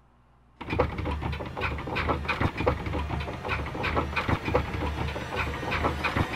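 A monster sound effect: a loud, rough, animal-like growl full of crackling clicks. It starts abruptly about half a second in, after near silence.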